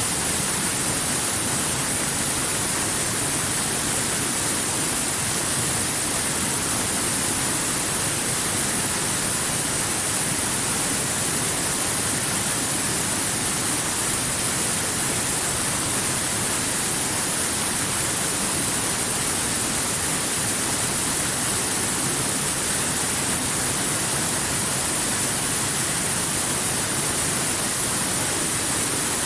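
Waterfall: a steady, unbroken rush of falling water, with a bright hiss in the highs.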